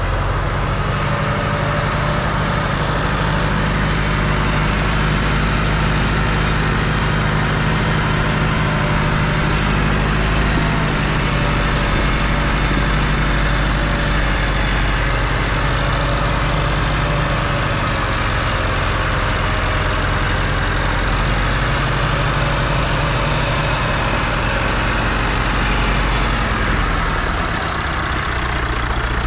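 Tractor engine running steadily with a low, even hum.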